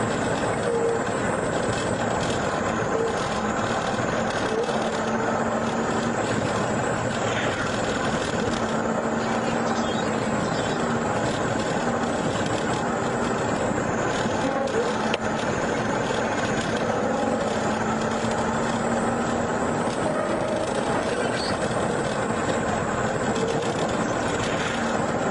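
Steady road and engine noise inside a car driving at highway speed, heard from the cabin.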